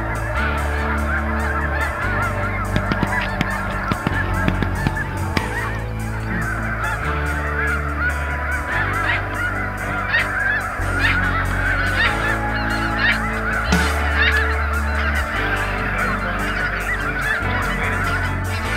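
A large flock of snow geese calling continuously, many overlapping high honks at once, over low held notes of background music.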